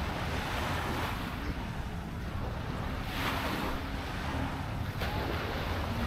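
Waves washing onto a beach, one swelling surge of hiss about halfway through, over a steady low rumble of wind on the microphone.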